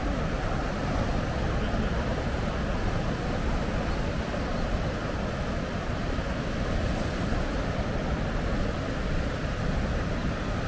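Sea surf washing against a rocky shore, with wind, making a steady rushing noise.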